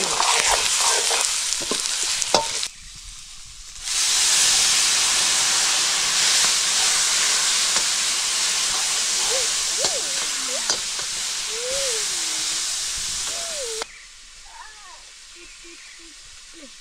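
Chicken curry frying in hot oil in a pan, sizzling loudly while being stirred. The sizzle drops away for about a second near three seconds in, then stops abruptly a couple of seconds before the end, leaving quieter sounds.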